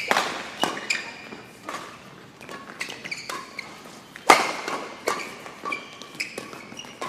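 A badminton rally in a sports hall: sharp racket strokes on the shuttlecock, roughly one every second, the loudest about four seconds in, with short high squeaks of court shoes on the floor between them.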